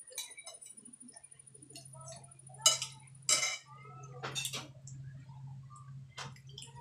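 People eating by hand at a table: chewing and mouth noises with scattered sharp clinks and knocks of plates and cutlery, the loudest two about two and a half and three and a half seconds in. A low steady hum comes in about a second and a half in.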